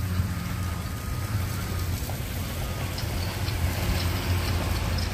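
A steady low motor hum from machinery, with the hiss of a garden hose spraying water over freshly made concrete blocks to cure them.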